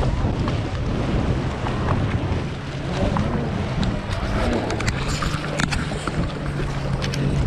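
Stand-up jet ski engines idling, a steady low hum that wavers slightly, with wind buffeting the microphone and water washing around the hulls. A few sharp clicks or knocks come in the second half.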